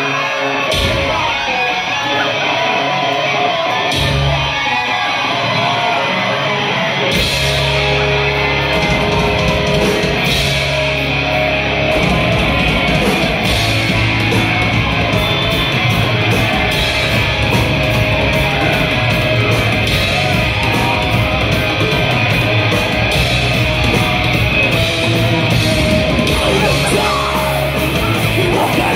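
Heavy metal band playing live through a club PA, with shouted vocals. Separate hits punctuate the first few seconds, then the full band with drums and bass kicks in about seven seconds in.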